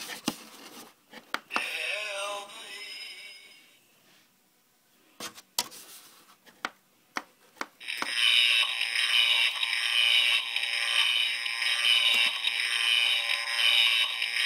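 Button clicks, then the 'try me' demo of a battery-operated skull pathway marker set playing a spooky sound effect through its small built-in speaker. A short falling, wavering tone comes about two seconds in. From about eight seconds a loud, steady, hissy sound pulses unevenly while the skulls light up.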